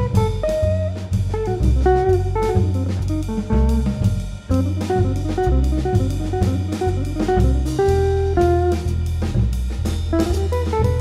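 Contemporary jazz guitar trio playing: electric guitar lines over double bass and drum kit.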